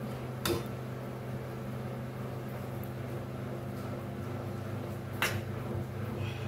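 Steady low mechanical hum, broken by two short sharp clicks, one about half a second in and one about five seconds in.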